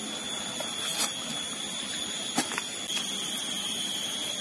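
Forest insects droning steadily at a high pitch, with a few soft clicks from chewing grilled catfish.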